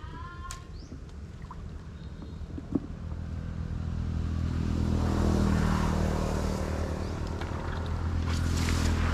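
A small engine running steadily, growing louder from about three seconds in, with a single sharp knock just before it rises.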